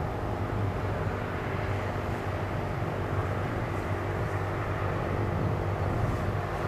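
Piston-engine propeller aircraft flying a low pass along the airfield, its engine a steady drone heard from a distance.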